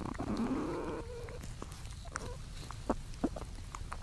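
Young platypuses in their nesting burrow: a short animal call that rises in pitch during the first second and ends in a brief held note, then a few scattered clicks and scrapes as they move about the chamber.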